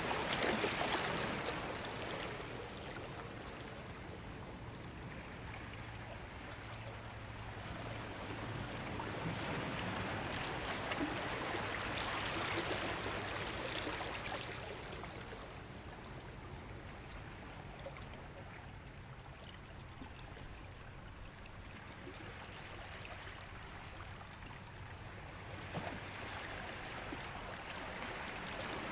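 Ocean waves washing onto a shore, the surf swelling and falling back in slow surges: loud at the start, again near the middle, and rising once more near the end.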